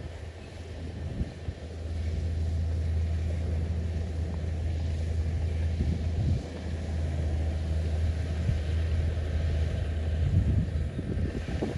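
Mitsubishi bulldozer's diesel engine running with a steady low drone, rising about a second and a half in and dipping briefly just after six seconds.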